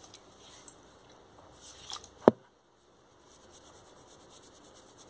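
A single sharp click a little over two seconds in, then faint rubbing of a cotton pad over long fingernails as old nail polish is wiped off.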